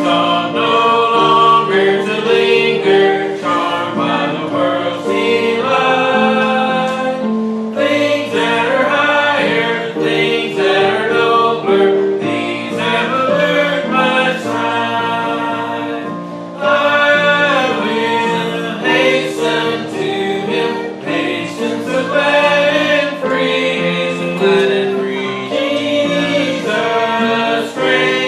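A congregation singing a hymn in unison over an instrumental accompaniment, in phrases of held notes.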